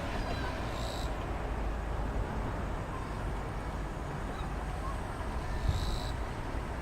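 Boeing 777-200ER airliner on final approach with its gear down, heard as a steady distant jet rumble. Two short high chirps come about a second in and again near the end.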